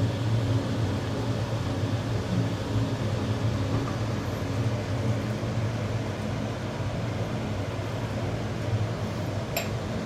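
Steady low machine hum with a faint even rushing noise, and one short click near the end.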